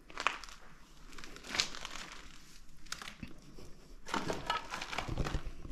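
Irregular crinkling and crunching of debris as someone moves through clutter, with a denser, louder stretch of crunching about four seconds in.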